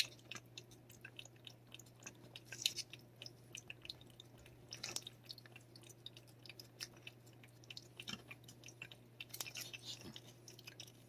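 A cat licking a lickable paste treat from a squeeze tube: a quick, irregular run of small wet mouth clicks and smacks.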